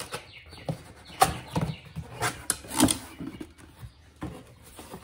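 Cardboard box handled and opened by hand: irregular knocks, scrapes and rustles as the lid flaps are pulled open. The sharpest knocks come about a second in and just before three seconds in.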